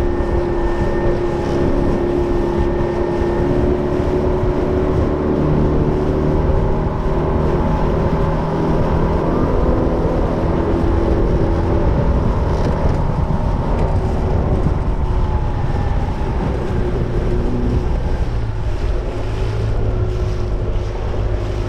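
15 hp Evinrude outboard motor running steadily with the jon boat under way, with wind on the microphone.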